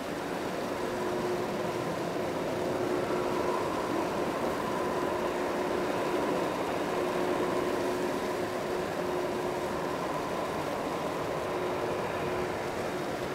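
Boeing 767-300ER's jet engines running near idle as the airliner rolls slowly after landing, its ground spoilers raised. A steady rush with two steady humming tones, one low and one higher.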